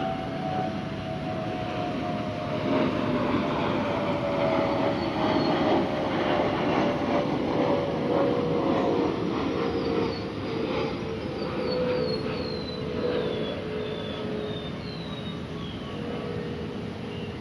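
A vehicle passing, its noise swelling and easing off, with a two-note whine that slides slowly down in pitch. Birds chirp with short high calls in the second half.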